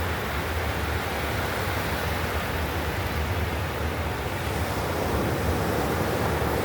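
Ocean surf breaking and washing on the beach, a steady rush with wind buffeting the microphone.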